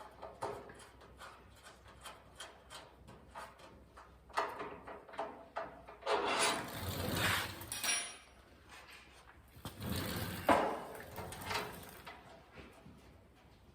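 Metal clicks and taps, with three longer scraping, sliding passes about four, six and ten seconds in, as a hidden tailgate latch and its slide are worked into the holes in a steel tailgate for a test fit.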